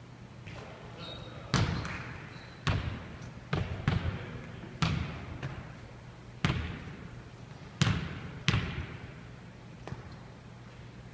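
Basketball bouncing on a wooden gym floor: about eight separate, unevenly spaced bounces, each echoing in the large hall.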